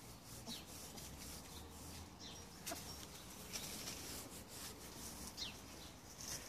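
Faint rustling and scraping in leaves and undergrowth, from animals or hands pushing through garden plants. A few short, high chirps that fall in pitch come from small birds.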